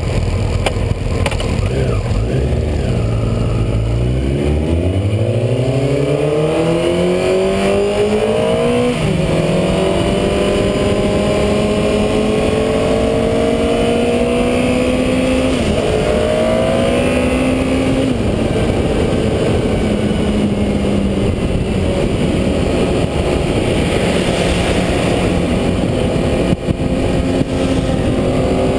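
Honda CBR954RR's inline-four engine accelerating hard, its pitch climbing and then falling suddenly at each upshift, about three times, before settling to a steady cruise. Wind rushes over the bike-mounted camera throughout.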